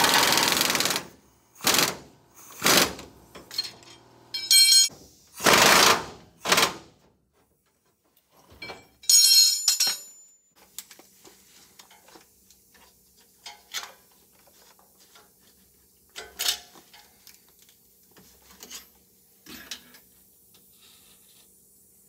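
Pneumatic impact wrench hammering in a series of short bursts over the first ten seconds, working the track bar mounting bolts to lower the track bar. After that come only faint scattered clicks and taps.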